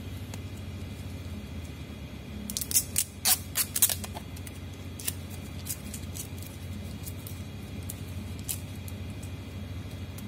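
Sharp plastic clicks and snaps as a smartphone is prised apart by hand: a quick cluster of them a few seconds in, then a few single clicks later. A steady low hum runs underneath.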